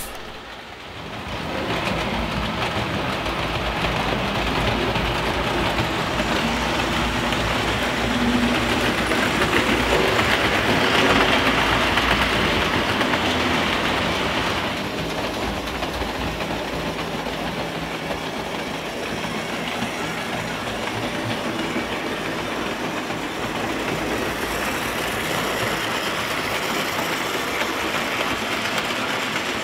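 Several Märklin H0 model trains running on pressed-steel M-track: a steady noise of wheels and motors on the metal track, swelling for a few seconds around the middle.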